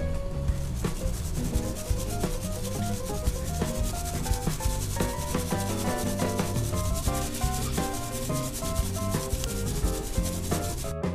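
Steady scratchy rubbing of a fine metal-mesh strainer as powdered sugar is sifted through it, cutting off about eleven seconds in, with background music underneath.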